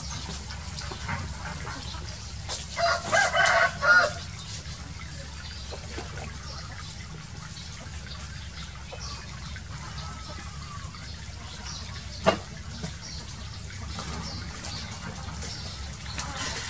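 Shallow water running and trickling steadily over a concrete pen floor. About three seconds in, a quick run of four short pitched animal calls, and a single sharp click near the middle.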